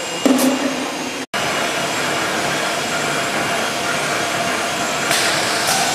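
Automatic can-making press running: a steady mechanical din, cut off briefly about a second in, with two short hisses near the end.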